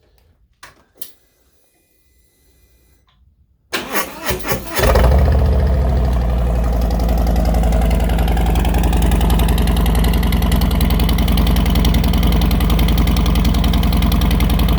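A couple of small clicks and a faint hum, then about four seconds in the Harley-Davidson Milwaukee-Eight V-twin cranks briefly on the starter, catches, and settles into a loud, steady idle through its slip-on exhaust with a modified baffle setup.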